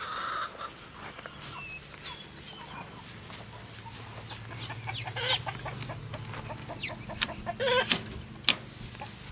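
Poultry clucking and calling in short, scattered calls, over a low steady hum.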